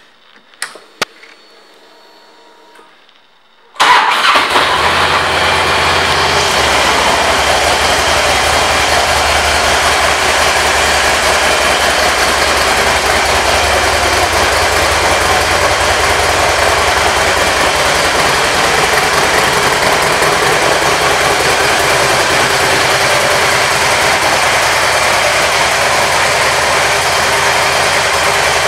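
2006 Harley-Davidson Ultra Classic's Twin Cam 88 V-twin engine, fitted with an aftermarket exhaust: a few faint clicks, then it fires up suddenly about four seconds in and settles into a steady idle.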